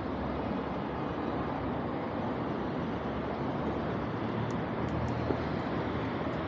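Steady rushing noise of riding a bicycle: wind on a small action camera's microphone and tyres rolling over paving. A few faint high clicks come about two-thirds of the way through.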